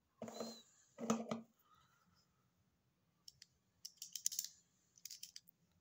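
Metal lens being unscrewed from a FED-5 rangefinder's M39 screw mount: clusters of small, sharp metallic clicks and scrapes, about three to five seconds in. Two short breathy puffs come first, in the opening second and a half.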